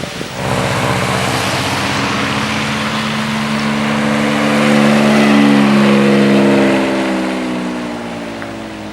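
A high-performance car's engine accelerating past over a steady hiss. Its pitch climbs slowly, it is loudest a little past the middle, then the pitch sinks as it fades away.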